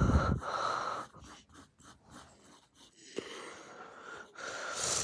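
Graphite pencil scratching across lined notebook paper in a run of short and longer drawing strokes.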